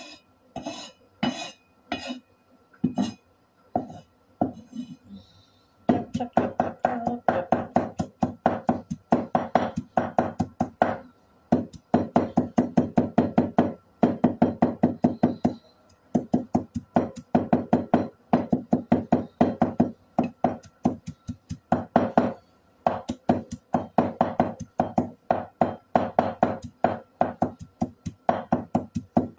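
Cleaver chopping on a wooden cutting board: a few separate knocks at first, then from about six seconds in a fast, steady run of blade strikes broken by a few short pauses.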